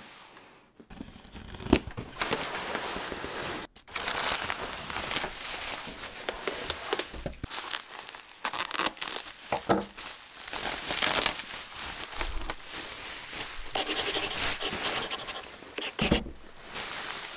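Packaging being torn open and crumpled by hand while unboxing: an irregular run of crinkling, tearing and scraping, with a sharp knock about two seconds in.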